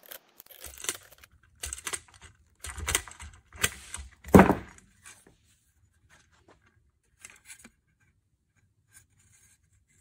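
Cleco pliers working spring-loaded Cleco temporary fasteners in a bent aluminium part: a string of sharp metallic clicks and jangles over the first five seconds, the loudest about four and a half seconds in, then only faint handling.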